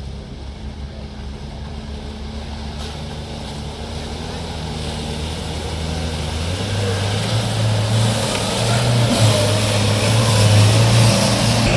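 Off-road vehicle engine running under load and getting steadily louder as it nears; its note steps up about two-thirds of the way in, with rising noise of tyres on the ground.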